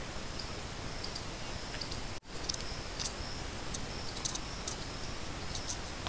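Outdoor background with a steady high-pitched whine and scattered short, sharp ticks. The sound drops out for an instant about two seconds in.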